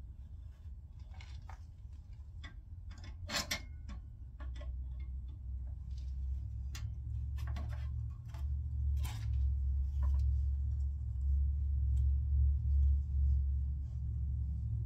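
Scattered clicks and light knocks of hand work on an old bandsaw being taken apart, the sharpest about three and a half seconds in, over a low rumble that grows louder partway through.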